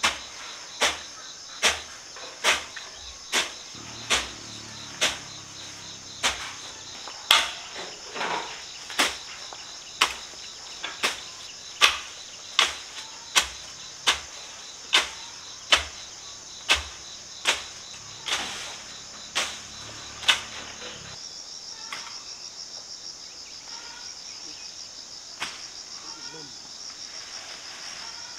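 Sharp strikes at an even pace, a little over one a second, which stop about twenty seconds in, over a steady chorus of insects; near the end the insect sound pulses rapidly.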